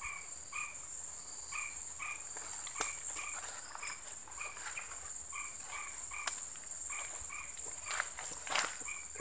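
Steady high-pitched drone of insects in swamp forest, with a short two-pitched call from a frog or other small animal repeating about twice a second. A few snaps and rustles of undergrowth, more of them near the end as footsteps push through ferns and brush.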